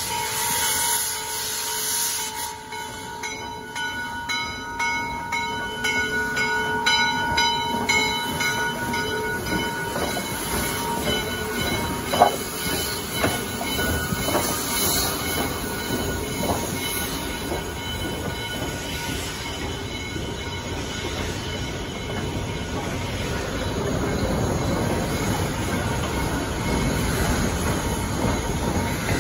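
Western Maryland Scenic Railroad's 2-6-6-2 Mallet steam locomotive 1309 rolling slowly, steam hissing. A steady ringing tone runs through roughly the first ten seconds, and there is a single sharp knock about twelve seconds in. The hiss and rumble grow louder over the last third as the engine draws its train in.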